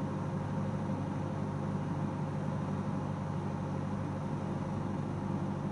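Cessna 172S's four-cylinder Lycoming engine and propeller droning steadily, heard inside the cabin on final approach.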